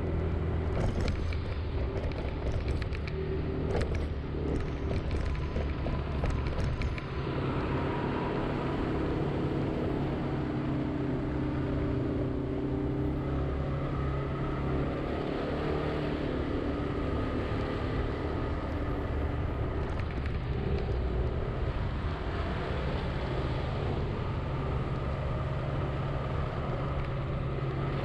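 Honda Zoomer-X scooter's engine running under way in city traffic, with steady road noise. There is a scatter of sharp ticks in roughly the first seven seconds, and the engine note shifts slightly as speed changes.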